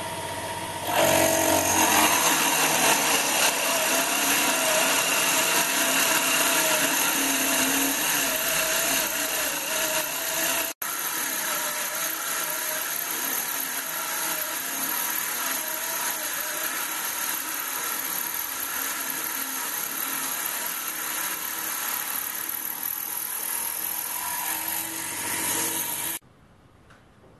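A belt-driven 775 DC motor power spindle running at 16 volts, drilling a 17/64-inch hole with the drill under load, its pitch wavering slightly as it cuts. It starts about a second in, breaks off for an instant near the middle, and stops abruptly just before the end.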